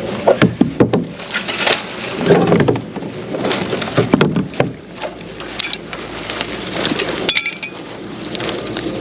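Irregular knocks and clinks of equipment being handled, with heavier thumps about two and four seconds in and a quick cluster of sharp strikes near seven seconds.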